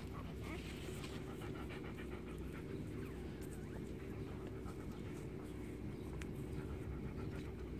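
Dog panting steadily, over a constant low hum.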